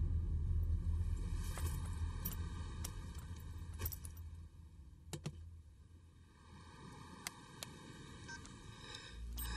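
Film soundtrack: a low sustained drone fading away, with scattered soft clicks and taps of a camcorder being handled. A low rumble comes back in near the end.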